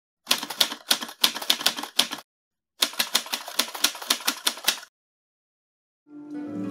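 Manual typewriter keys being struck in two quick runs of clacks, each about two seconds long, with a short pause between. Music with a sustained held note begins near the end.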